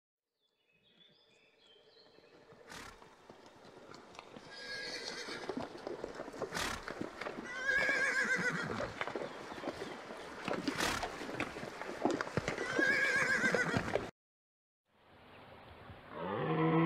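A horse whinnies three times, a few seconds apart, with a few sharp knocks in between. Near the end a red deer stag starts a low rutting roar.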